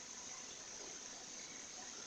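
Faint steady hiss of background noise, with no distinct event.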